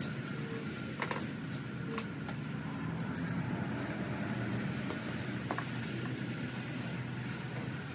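Scattered light clicks and taps of hand work on the dirt bike's parts, over a steady low hum.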